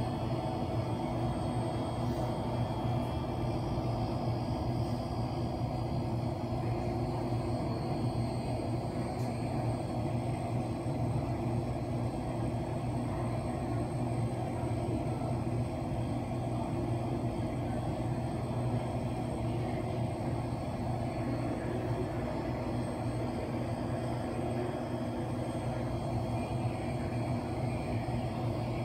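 Steady low mechanical hum and rumble with several constant tones and a faint high whine, unchanging throughout: the background drone of an indoor swimming pool hall.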